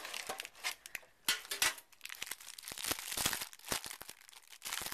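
Clear plastic wrapper of a trading-card pack crinkling as hands handle and open it: a dense run of irregular crackles.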